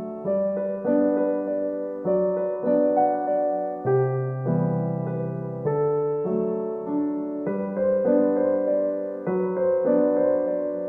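Background music: a gentle electric piano melody with sustained chords, notes changing in a steady, even rhythm.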